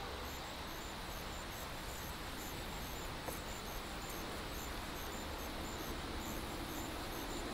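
Insects chirping in an even, repeating high-pitched pulse over a steady outdoor hush, with a faint click about three seconds in.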